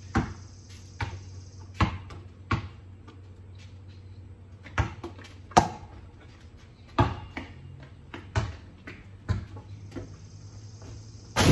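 A basketball bouncing on concrete as players dribble and shoot: about a dozen sharp thuds at uneven intervals.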